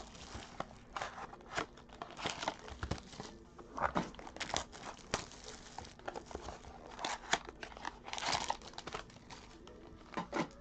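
Plastic wrapping crinkling and tearing as a pack of trading cards is opened, with irregular rustles and small clicks from the cards and packaging being handled.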